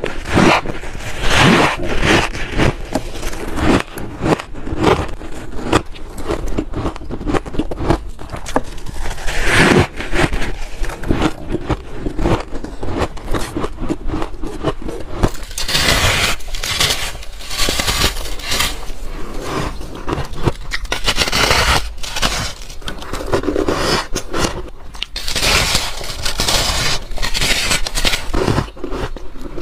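Close-up biting and chewing of packed freezer frost: dense, squeaky crunching and crackling, with fingers scraping frost off the floor of a chest freezer. About fifteen seconds in the sound turns brighter and crisper as bites are taken from a large block of frost.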